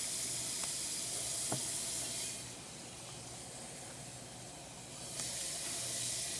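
Alka-Seltzer tablet fizzing in water: a steady high hiss that drops away for nearly three seconds partway through, then comes back.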